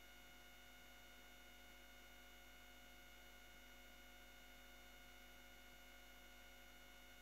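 Near silence: only a faint, steady hum and hiss with no other sound.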